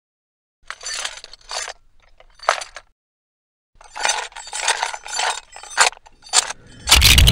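Clinking, clattering sound effects, about one every half second with a short pause in the middle, timed to a stop-motion Lego knight minifigure's steps. Near the end comes a loud crash with a deep rumble that carries on.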